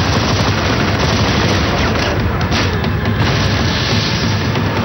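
Rapid gunfire and booms in a dense, continuous barrage, starting abruptly and staying loud throughout.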